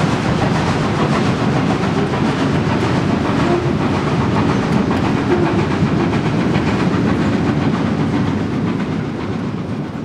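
Passenger coaches of a steam-hauled train rolling past, their wheels clattering steadily on the rails. The noise starts to fade near the end as the train draws away.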